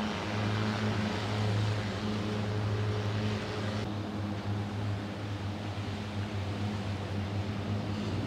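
An engine running steadily, a low droning hum with a strong even pitch under a hiss of noise.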